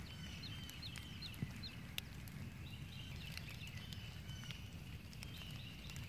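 Storm wind buffeting the microphone as a steady low rumble, with a background chorus of frogs giving short, high, rising peeps several times a second.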